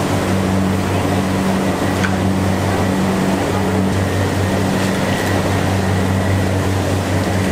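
Steady, loud mechanical drone with a low hum under an even rush of noise, the running noise of machinery in a commercial kitchen.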